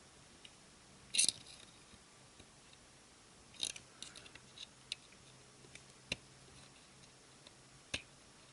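Light clicks and scrapes of metal multimeter probe tips being set against a transistor's legs on a circuit board: a few separate ticks, the loudest about a second in, over a faint low hum.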